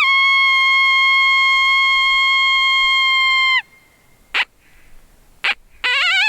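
Coyote howls. A long howl rises with a wavering start and holds one steady pitch for about three and a half seconds. Two short, sharp yips follow, and a second rising howl begins near the end.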